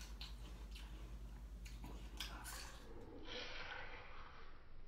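Quiet room tone with a steady low hum and a few faint clicks, then a soft breath-like hiss from about three seconds in.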